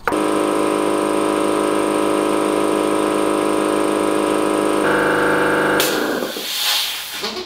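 ABAC Red Line air compressor's electric motor and piston pump starting and running steadily, pumping up the tank. Near the end the sound changes, then the compressor cuts out and a hiss of released air follows and fades, as the pressure switch shuts it off at full pressure of just over 9 bar.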